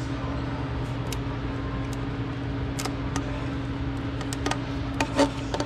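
A steady low hum, with scattered light clicks and taps of a pick tool and gloved fingers working at plastic quick-connect hose clips in a car's engine bay. The clicks cluster about five seconds in, the loudest of them near the end.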